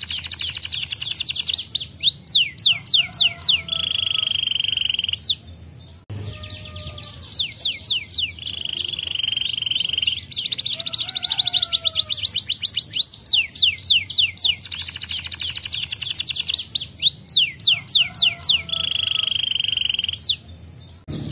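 Domestic canary singing a long, loud song of fast repeated trills and sweeping whistled notes, with buzzy rolled stretches between them and brief breaks about six seconds in and near the end.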